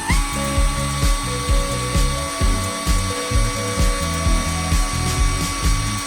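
Background music with a steady beat, over a steady high whine like that of a small power tool's motor, which steps slightly up in pitch at the start.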